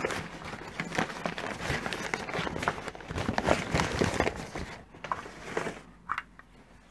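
Brown packing paper rustling and crinkling as a parcel is unwrapped, dense for about five seconds, then quieter with a few light knocks as a tobacco tin is handled.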